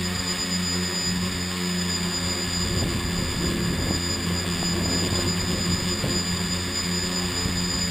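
Motors and propellers of a small radio-controlled camera aircraft, heard from on board: a steady hum with a high whine. From about three seconds in, an uneven rumble of wind buffeting the microphone joins in.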